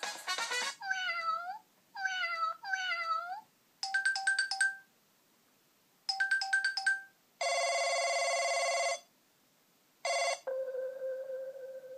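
Smartphone loudspeaker playing short ringtone previews one after another. First come three synthetic cat meows, each sliding down and back up. Then come two quick runs of electronic beeps, a steady buzzing tone lasting about a second and a half, and near the end a short burst that leaves a single fading tone.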